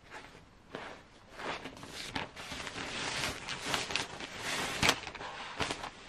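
Rustling and crinkling of a white protective bag as a laptop is slid into it: irregular scratchy rustles that build after about a second, with a sharp crackle near five seconds.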